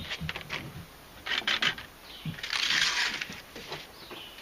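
Light knocks and clinks of camp cookware being handled, then about a second of harsh noise midway through.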